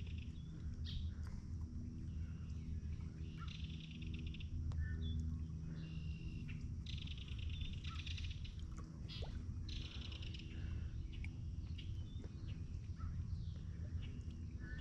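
Birds trilling and chirping, with several rapid high trills about a second long, over a steady low hum.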